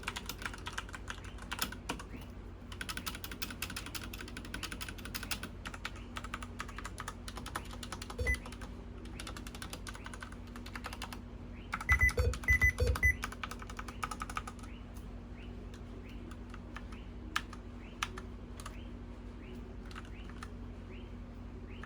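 Typing on a Redragon K551 Vara mechanical keyboard: a fast, dense run of key clicks, then a few loud heavy thumps about twelve seconds in, then slower, separate keystrokes.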